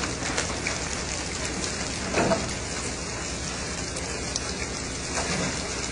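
Steady rushing noise of wind and water on the open deck of a fishing boat at sea, with fine crackle throughout, briefly louder about two seconds in.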